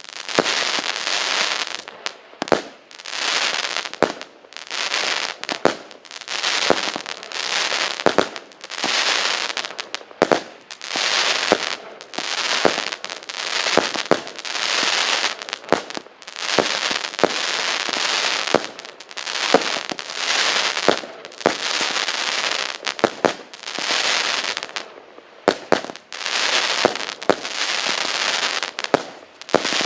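A 36-shot consumer firework cake with 0.8-inch tubes firing shot after shot, about one every second and a bit. Each shot is a sharp launch bang followed by about a second of hissing, crackling burst.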